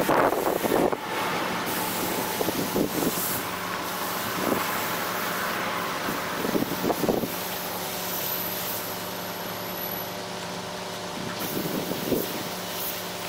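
Compressed-air paint spray gun hissing steadily as it atomizes paint, over a steady mechanical hum, with a few short clicks.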